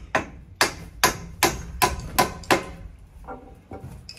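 Hammer driving nails into a wooden brace board on a roof frame: seven sharp, ringing blows at about two or three a second, then two lighter taps near the end.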